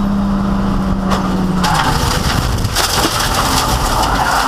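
In-car sound of a Mazda RX-7 endurance race car: a steady engine note, then from about one and a half seconds in a loud crunching, rattling din with several sharp knocks, typical of the car being hit or scraping along.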